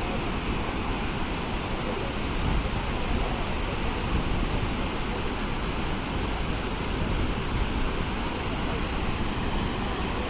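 Waterfall's water rushing, a steady unbroken noise.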